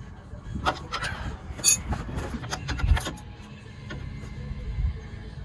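Metal tools and suspension parts clinking and knocking during hand work on a pickup's front suspension: a run of sharp clicks, one ringing metallic clink, and a few dull thumps.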